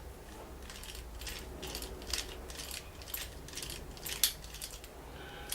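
The speed selector mechanism of a Dansette Popular record player, freshly greased, being turned with pliers. It clicks and ratchets through its positions in a run of sharp clicks, about two a second, the loudest about four seconds in.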